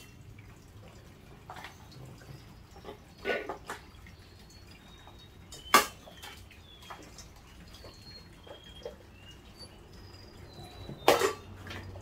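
Parts of a stainless steel pet water fountain being handled and fitted together, the pump and its cover clicking into place. Scattered clicks and knocks, the sharpest a little past halfway, with small water drips plinking in between.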